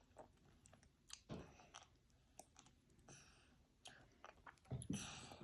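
Faint scattered clicks and short soft crackles of an orange being peeled and its pieces eaten, with a slightly louder crackle near the end.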